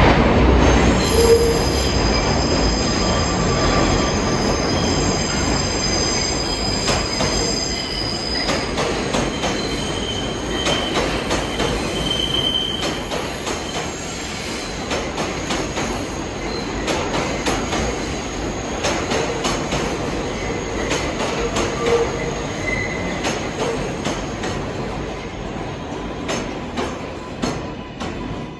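A New York City subway train of the R142 family moves through the station with a loud rumble that gradually fades. Its wheels squeal with high steady tones through the first dozen seconds. Clicks over the rail joints stand out more toward the end.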